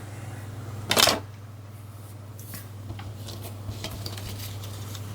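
Hard plastic remote-control parts handled on a work surface: one sharp clatter about a second in, then a few light clicks and taps.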